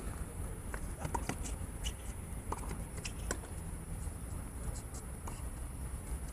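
A racket-sport rally: scattered sharp hits, about one every half second, with a few short squeaks like shoes on a court floor, over a steady low rumble.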